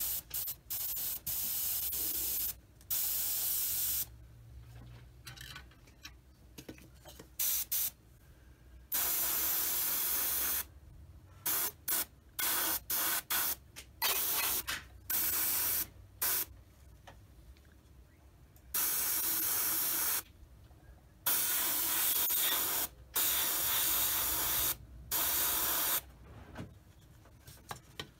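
Airbrush spraying primer with its air pressure set at 18 psi: a string of hissing bursts that start and stop sharply as the trigger is worked, some brief puffs and some steady passes of a second or two.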